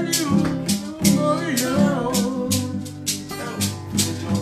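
Acoustic guitar strummed in a steady rhythm, about two strums a second, with a man rapping over it.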